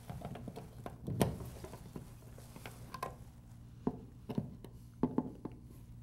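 Plastic outlet cover plate being fitted over a wall receptacle and its screw started with a screwdriver: a scatter of small light clicks and taps, the loudest a little over a second in.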